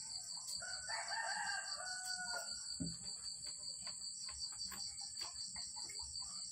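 A rooster crowing once, starting about half a second in and lasting about two seconds, ending on a held note.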